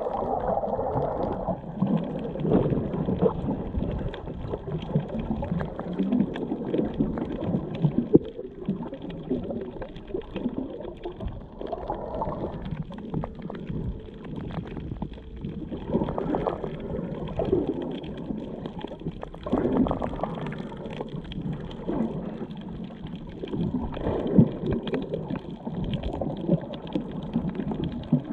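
Muffled underwater gurgling and rumbling of moving water, heard through a submerged action camera, rising and falling in irregular swells.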